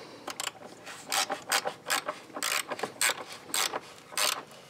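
Hand ratchet clicking as it turns a 13 mm socket on an extension: short bursts of pawl clicks roughly every half second, one for each back-stroke, while the battery hold-down bolt is tightened to clamp a new car battery in place.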